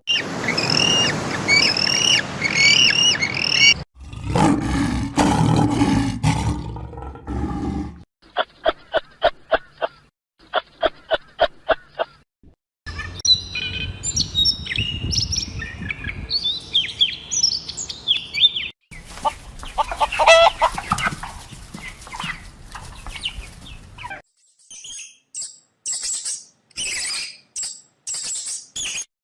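Small birds chirping and calling, in a string of short clips cut one after another, with a stretch in the middle of evenly spaced short calls at about three a second.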